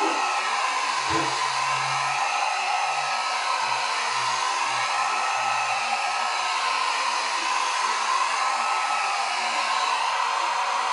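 Handheld hot-air dryer blowing steadily, drying freshly applied paint; its sound shifts slightly as it is waved back and forth over the work.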